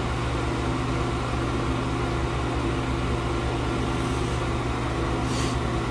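Steady mechanical hum of a washroom ventilation fan running, an even low drone that does not change.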